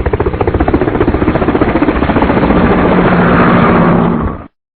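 An engine running with a rapid, even throbbing beat, growing slightly louder, then cutting off suddenly near the end.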